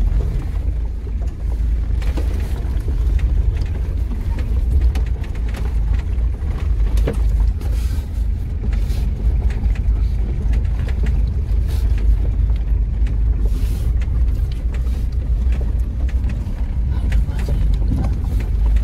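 Cabin noise of a small four-wheel-drive vehicle driving over a dirt field: a steady low engine and tyre rumble, with scattered short knocks and rattles.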